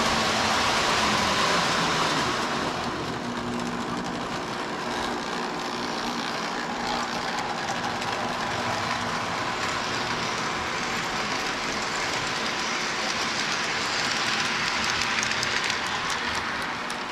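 Lionel O-gauge electric toy train running on track: a steady motor hum with wheels clicking lightly over the rails, a little louder in the first couple of seconds.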